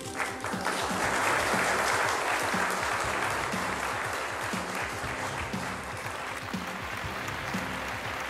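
Applause from a room of people, swelling about a second in and slowly dying away, over background music with a steady beat.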